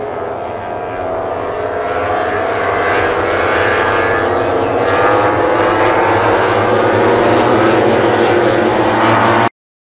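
Several MotoGP racing motorcycles' 1000 cc four-cylinder engines screaming at high revs as the pack races past, the sound swelling louder over the first few seconds. It cuts off suddenly near the end.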